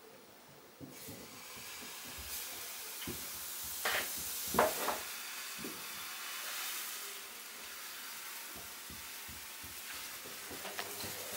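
Crepe batter sizzling as it hits a very hot frying pan at about 200 degrees and spreads as the pan is tilted. The hiss comes up about a second in and holds, with a few sharp knocks about four and five seconds in.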